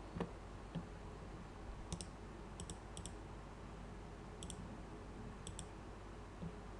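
Computer mouse clicking, mostly in quick pairs of clicks a second or so apart, over faint steady background noise.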